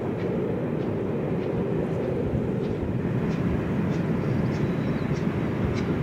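LMS Royal Scot class steam locomotive 46115 Scots Guardsman hauling its train across an iron girder bridge: a steady low rumble with faint, regular ticks about every 0.6 seconds.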